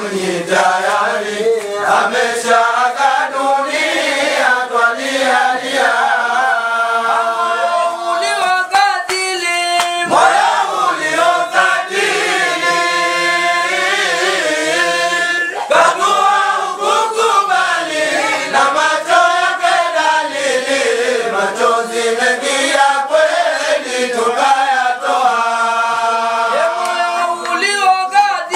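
A group of men chanting a dhikr together, in long drawn-out notes that rise and fall, led by one man's voice on a microphone.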